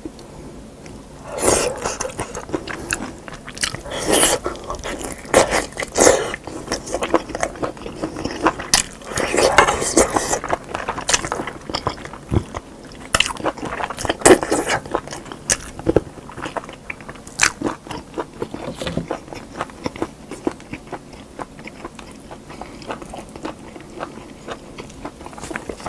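Close-miked eating: a person biting and chewing meat off a bone from a spicy stew, with sharp irregular bites and wet chewing sounds. It is loudest and busiest in the first half, and the chewing is softer in the last ten seconds or so.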